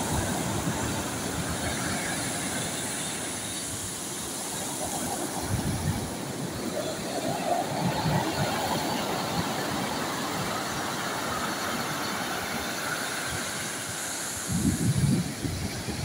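Sea surf breaking on a pebble beach, with an even roar that swells and ebbs as each wave crashes and washes up the stones. There is a louder crash near the end.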